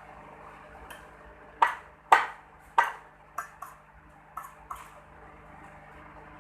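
Metal tools clinking at a jeweller's bench: about eight sharp metallic taps with a short ring. The first three are the loudest, and softer ones follow. A steady low hum runs underneath.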